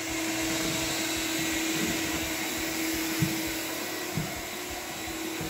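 Canister vacuum running steadily as a hose and wand pull dust off bare sanded hardwood floor, with a couple of brief knocks about three and four seconds in.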